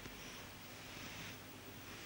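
Faint room tone: a steady hiss and low hum with a few faint small clicks.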